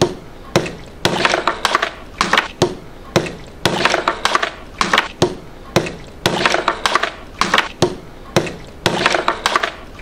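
Repeated crunching and cracking, in short clusters of sharp strokes about every half second to a second, like something brittle being crushed or broken.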